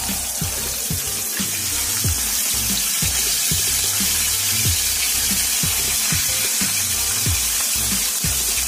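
Battered chicken pieces deep-frying in a pan of hot oil: a steady, hissing sizzle, with background music underneath.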